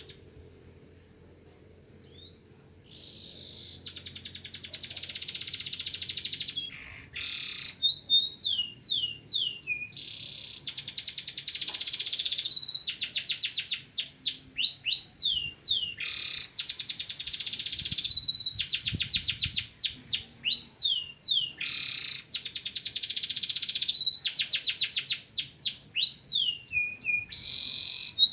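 Domestic canary singing a long song, phrase after phrase, of rapid trills and fast falling whistled notes. The song starts a few seconds in after a quiet opening.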